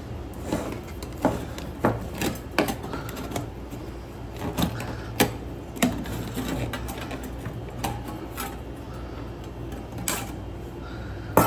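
Butter knife prying and scraping at the lid of a metal food can, giving irregular metal clicks and knocks, with a louder knock near the end.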